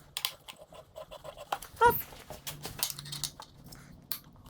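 Scattered clicks and clinks of hand tools and bolts being worked on a dirt bike's frame, with one short high squeak about two seconds in.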